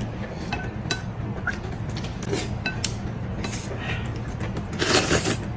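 Eating at the table: utensils clicking and clinking against bowls and dishes, a few strikes ringing briefly, over a steady low hum. A louder scraping, noisy burst comes near the end.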